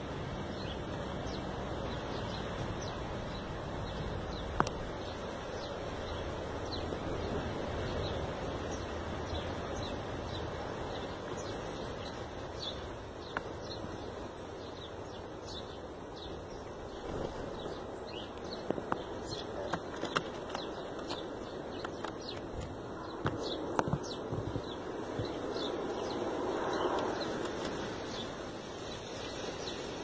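Small birds chirping over a breezy outdoor background. From just past halfway, a run of short sharp splashes and wing flutters as a great tit bathes in a shallow birdbath.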